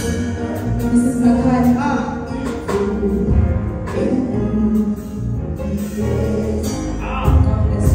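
A woman singing a gospel song into a microphone over instrumental accompaniment, with guitar and bass.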